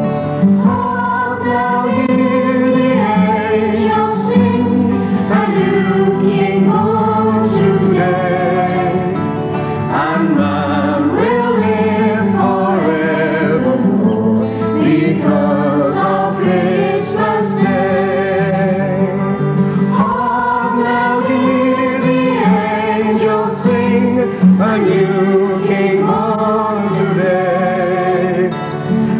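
A children's choir singing a folk Christmas carol, accompanied by a strummed acoustic guitar.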